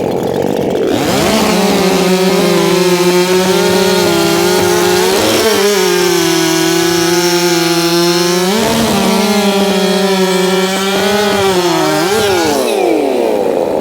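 Makita 6100 two-stroke chainsaw revved to full throttle about a second in and cutting through a log with a freshly hand-sharpened Oregon EXL chain. The engine pitch dips briefly twice under the load, then drops back to idle near the end.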